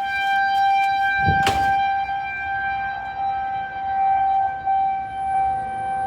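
Federal Signal 2001-130 outdoor warning siren sounding at full speed for a tornado warning: a loud, steady-pitched wail. There is one brief knock about a second and a half in.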